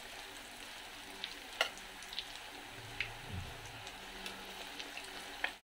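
Breaded chicken drumsticks deep-frying in hot oil in a stainless steel pan: a steady sizzle, with a few sharp clicks of metal tongs against the pan as the pieces are turned. The sound cuts off suddenly near the end.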